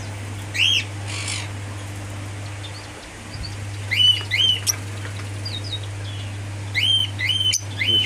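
Lovebirds giving short, sharp chirps in small groups: one, then two about four seconds in, then three near the end, over a steady low hum.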